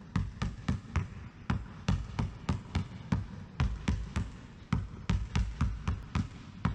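Basketball bouncing on a wooden gym floor in quick, even low dribbles, about three or four bounces a second, as the ball is worked around the legs.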